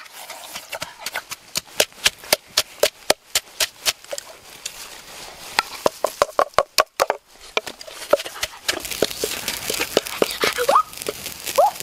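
Wooden pestle knocking in a clay mortar, rapid sharp knocks about three to four a second, easing off after about eight seconds. Near the end, a boy's voice gives two short rising yelps.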